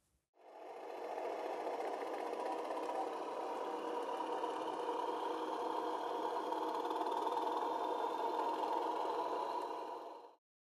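G gauge model diesel locomotive pulling a wagon along the track, giving a steady mechanical running hum. The hum fades in just after the start and fades out near the end.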